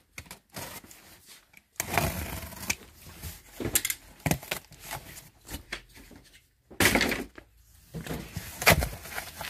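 A cardboard shipping box is cut and torn open. A box cutter slices the packing tape and the flaps are pulled apart, making several short bursts of ripping and scraping. The loudest bursts come about seven seconds in and just before the end.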